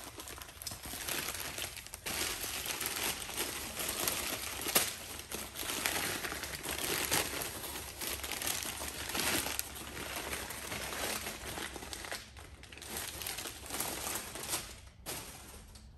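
Newspaper crumpling and rustling in the hands as a film camera is unwrapped from it, in irregular handfuls with one sharp crackle about five seconds in, dying down near the end.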